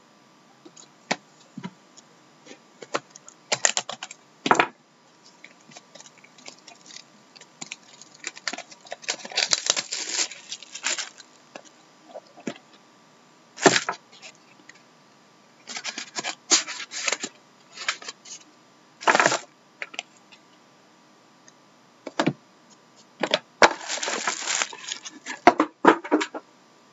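Hands opening a pack of hockey trading cards: scattered clicks and taps, with short bursts of rustling and scraping as the sleeve comes off and the cards are slid out and shuffled.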